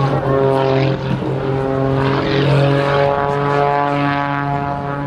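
Aerobatic biplane's piston engine and propeller droning steadily, the pitch wavering slightly as it flies its manoeuvres.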